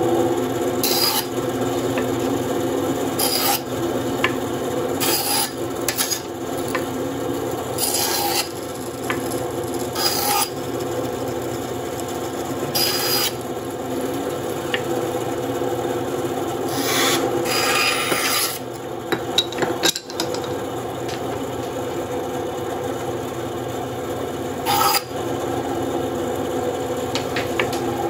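WEN 3939 9-inch bandsaw running with a 1/4-inch blade, ripping thin strips off wood planks: a steady motor and blade hum under the rasp of the blade cutting, with short, sharper bursts every few seconds.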